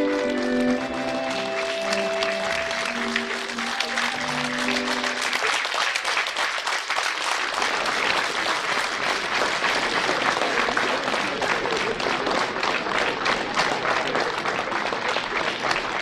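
Slow music with held notes fades out in the first five seconds while audience applause rises and takes over, a dense steady clapping.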